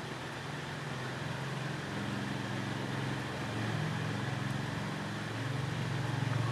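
Steady low background hum with a faint hiss, its low tones wavering slightly; no distinct clicks or knocks.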